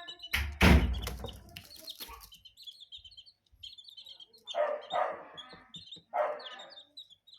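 Chicks peeping with short, high, repeated chirps, and two louder clucking calls about four and a half and six seconds in. A loud thump with a rumble comes near the start and is the loudest sound.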